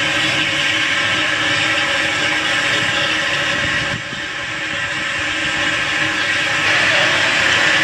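Steady loud hiss of steam escaping from the cylinder drain cocks of an SR U class 2-6-0 steam locomotive. It dips briefly about four seconds in, then swells again.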